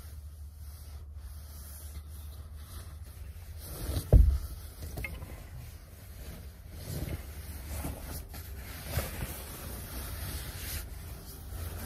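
Nylon down jackets and bedding rustling as they are handled and shifted at close range, with a single thump about four seconds in, over a steady low hum.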